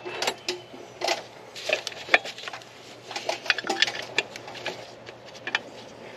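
Irregular metallic clicks and light clatter of a socket wrench on an extension as a bracket bolt is started into the alternator and power steering pump bracket, thinning out near the end.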